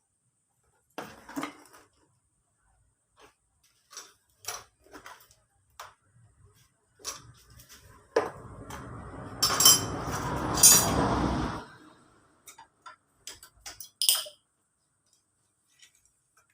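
Metal tools and engine parts clinking and knocking while a scooter engine is taken apart, with a few seconds of continuous rattling and scraping in the middle.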